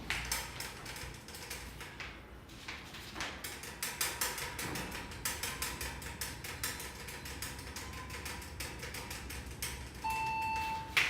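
A rapid, irregular series of sharp clicks or taps, thickening about three seconds in. A steady high beep-like tone comes in near the end.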